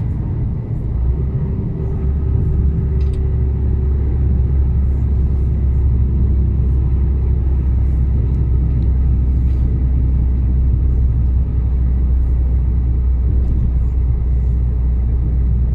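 Mercedes-Benz Actros truck's diesel engine droning steadily inside the cab while driving, with a low rumble and road noise; it gets louder about a second in.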